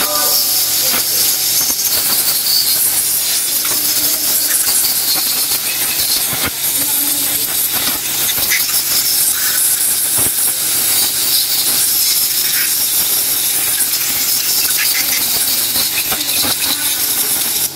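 Compressed air hissing steadily from an air blow gun, blowing degreased pressure-washer parts dry; it cuts off at the end.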